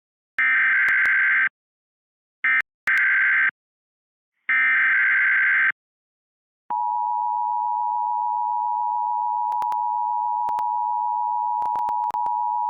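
Emergency alert signal for a tornado warning: three short buzzy bursts of the digital alert header, about a second each, followed a second later by a steady electronic attention tone that holds to the end, broken by a few clicks near the end.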